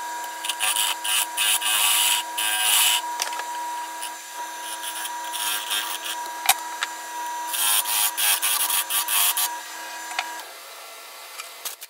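Wood lathe running with a steady whine while a carbide diamond-point tool cuts into the spinning wooden bowl's rim in two spells of hissing, scraping cuts: one over the first few seconds, the other about eight to nine and a half seconds in. There is a sharp click midway, and the lathe's whine cuts off near the end.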